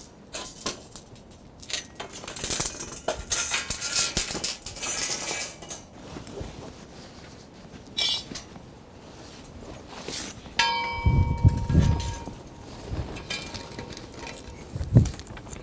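A steel bandsaw blade, 1.5 inches wide, being worked over the bare steel wheels of a homemade bandsaw mill: irregular metal scraping and knocking. About ten and a half seconds in there is a clang that rings on for a second or so.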